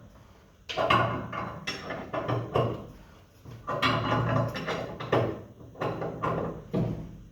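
A big wrench working the nut up the threaded rod of a homemade coil spring compressor, heard as a string of sudden metal clanks and scrapes, about one a second.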